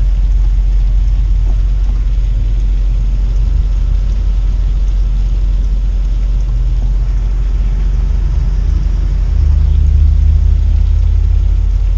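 Class A motorhome's engine rumbling in the cab while waiting in traffic. It grows louder about eight or nine seconds in as the motorhome pulls away.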